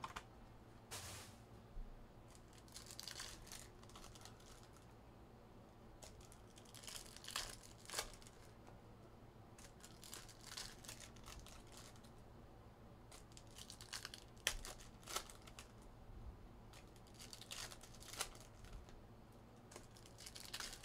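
Faint tearing and crinkling of Topps Cosmic Chrome foil card pack wrappers being ripped open by hand, in scattered short bursts with a few sharp crackles.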